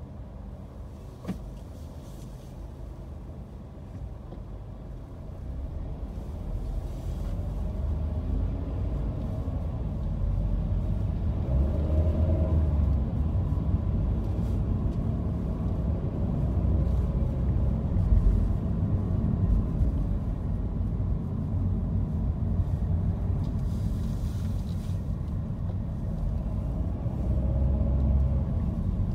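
Car driving in city traffic: a low engine and tyre rumble, quiet while stopped at a red light, then rising about five seconds in as the car pulls away and holding steady while it drives. One short click comes about a second in.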